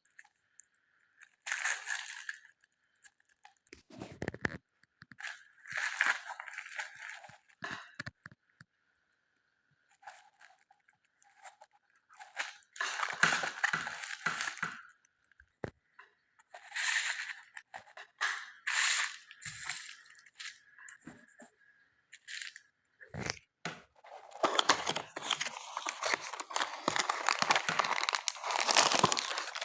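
Packaging crinkling and rustling in irregular bursts as it is handled and opened, with a longer, denser stretch of crinkling near the end.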